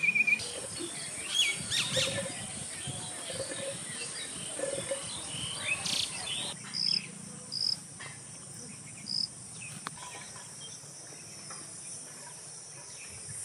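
Outdoor rural ambience: insects keep up a steady high-pitched drone, with scattered bird chirps and calls, including three short high chirps about halfway through.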